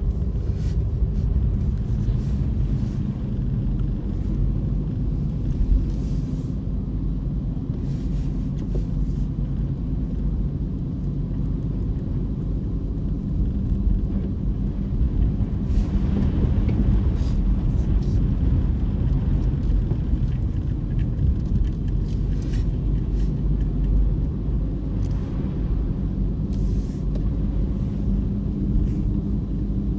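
Car driving slowly on a snowy road: a steady low rumble of engine and tyres.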